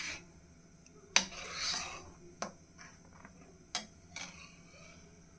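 Steel ladle stirring and scraping the bottom of a stainless steel pan of besan kadhi, with four sharp knocks of the ladle against the pan. The loudest knock comes about a second in, followed by about a second of scraping.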